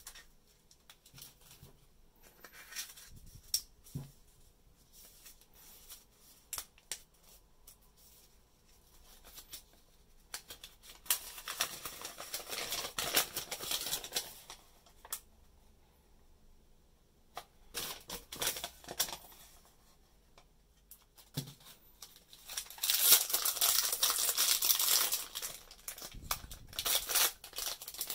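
Hands handling and unwrapping a sparkly plastic toy wrapper and a folded paper leaflet: light clicks and taps of plastic parts at first, then stretches of crinkling and rustling. The loudest crinkling comes in the last five seconds as the wrapper is pulled open.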